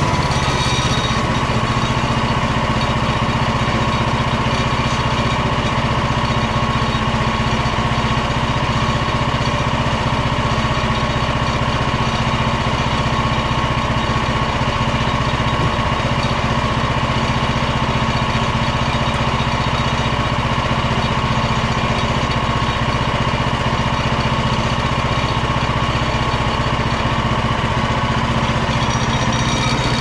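Frontier OS27 portable bandsaw mill running steadily, its small engine held at speed while the band blade cuts lengthwise through an ash log.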